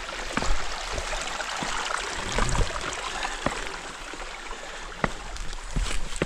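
Small mountain stream running among boulders, a steady rushing hiss, with a hiker's uneven footsteps scuffing and knocking on rock and dirt trail about once a second.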